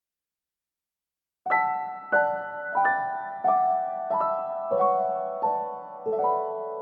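Background piano music: silent for about the first second and a half, then a slow, gentle melody of single struck notes, each ringing and fading before the next, about one every two-thirds of a second.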